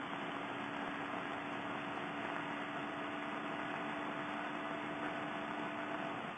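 Motorcycle's parallel-twin engine running at a steady highway cruise, its hum holding one pitch, under a constant rush of wind on the microphone.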